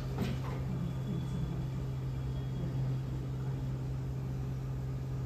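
Blue Star inverter split air conditioner's outdoor unit running with a steady low hum.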